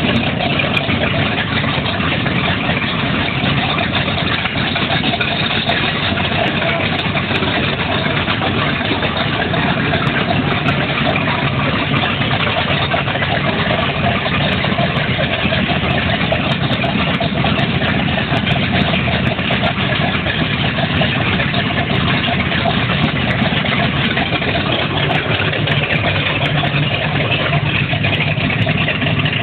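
Twin 454 big-block V8 boat engines running together steadily, loud and deep.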